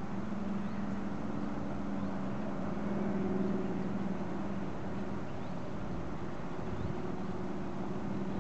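Diesel locomotive engines droning in the distance: a steady low hum, with a second, higher note coming in about three seconds in.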